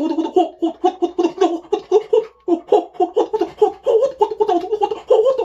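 A man's voice chanting 'ho' over and over in a fast, laugh-like string, about five syllables a second.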